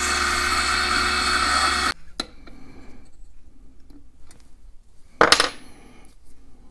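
Benchtop mini wood lathe's small motor running with a steady whine while sandpaper is held to the spinning wooden workpiece, stopping abruptly about two seconds in. After it, faint handling clicks and one sharp metallic knock a little past five seconds.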